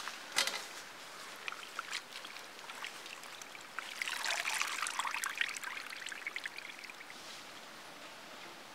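Water streaming and trickling from handfuls of cleaned goat intestine squeezed out over a steel bowl of water. There are a few short clicks in the first two seconds, and the water is loudest about four to seven seconds in.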